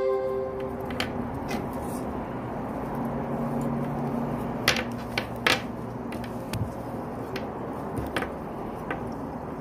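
A ringing musical note fades out in the first second, then hands handle a crocheted raffia bag: soft rustling with a few sharp clicks, several close together about halfway through and one more near the end.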